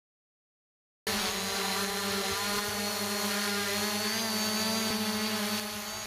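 Small folding-arm quadcopter drone hovering close by, its propellers giving a steady multi-tone whine that starts suddenly about a second in.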